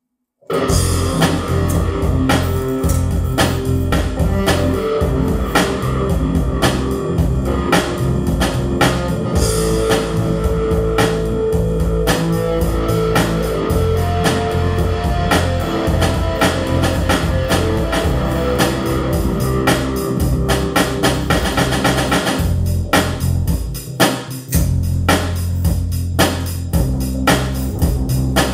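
Rock-style music with guitar and a drum kit playing a steady beat, starting suddenly about half a second in.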